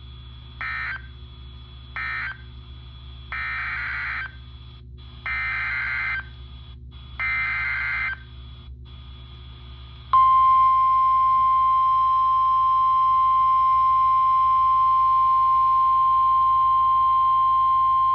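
NOAA Weather Radio Emergency Alert System signalling: three short end-of-message data bursts closing the previous warning, then three longer SAME header data bursts, buzzy digital screeches, announcing a new severe thunderstorm warning. About ten seconds in, the loud, steady 1050 Hz warning alarm tone starts and holds.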